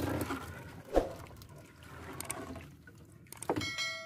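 Wet triple net (trammel net) being hauled aboard a fishing boat, seawater running and dripping off the mesh. A sharp knock comes about a second in, and a short steady tone sounds near the end.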